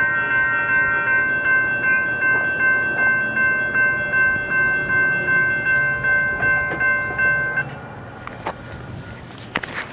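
Light-rail warning bell ringing in quick repeated strokes, about two a second, then cutting off about three quarters of the way through. A few handling knocks near the end.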